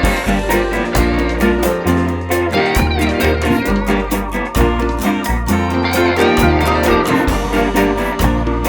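Background music led by guitar over a steady beat and bass line.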